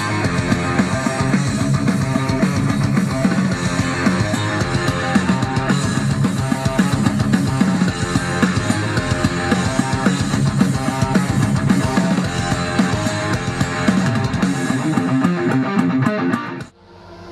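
Heavy metal music with guitars and a steady beat, cutting off abruptly near the end.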